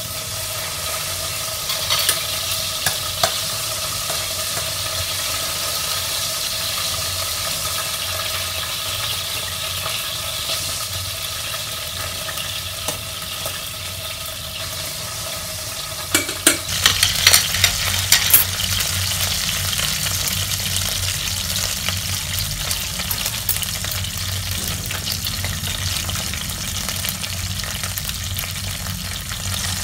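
Chopped garlic and a bay leaf sizzling steadily in hot oil in a pan. Metal tongs click and scrape against the pan now and then, most of all in a burst a little past halfway.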